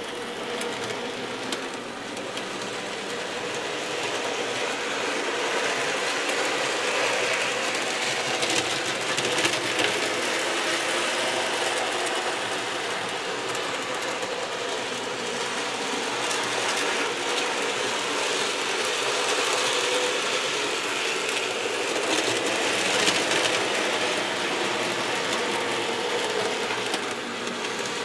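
N gauge model train running on its track: a steady mechanical whirr and rattle from the small locomotive and its cars, growing a little louder over the first few seconds.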